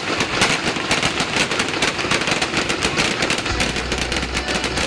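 Aerial fireworks going off in a dense, rapid volley: many sharp bangs and crackles a second, with no pause.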